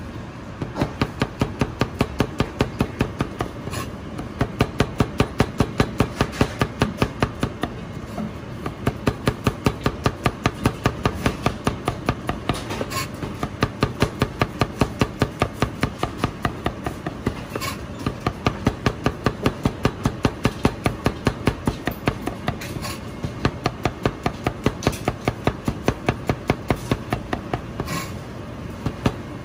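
Chinese cleaver rapidly slicing garlic cloves, its blade knocking on the cutting board about six times a second in runs of a few seconds with short pauses between them.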